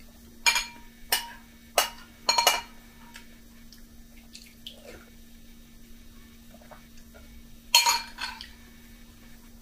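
Metal spoon clinking against a glass bowl while scooping cereal with milk: a quick run of four or five clinks in the first few seconds, then one more about eight seconds in.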